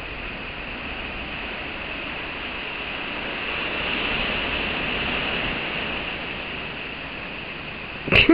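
Steady rainforest background hiss with a high, even buzz that swells and fades in the middle, and a brief loud sound near the end.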